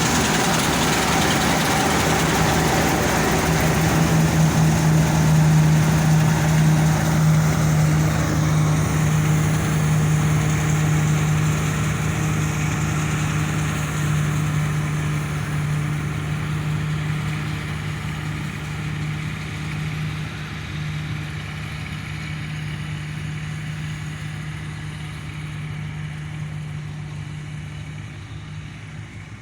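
Combine harvester engine running steadily with a strong low hum, loudest a few seconds in and then slowly fading away.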